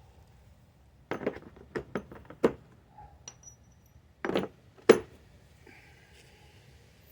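Metal tools or parts clinking and knocking as they are handled: a quick run of sharp clinks about a second in, then two louder knocks a couple of seconds later.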